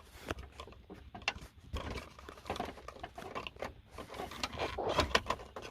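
Close handling of a plastic HVAC control panel, with irregular small clicks and scrapes as a flathead tool twists a bulb socket out of the back of the unit.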